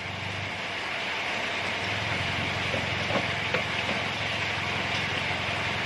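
Toyota Yaris engine running steadily as the automatic car creeps in reverse, a low hum under an even hiss, with only a couple of faint ticks. There is no clunking from the front wheels now that the loose crossmember bolts have been tightened.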